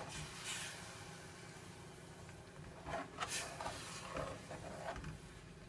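Metal spoon stirring and scraping a mixture in a stainless steel pot: a few scraping strokes, with light clicks of the spoon against the pot near the end.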